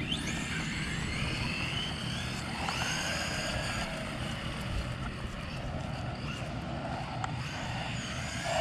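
Electric motors of two 4WD RC cars, a Reflex 14B buggy and a Blackout XTE Pro monster truck, whining as they race, the pitch rising and falling with the throttle.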